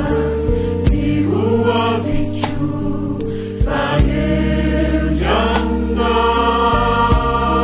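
Mixed choir singing a gospel song over sustained instrumental backing, the voices swelling fuller about five and a half seconds in.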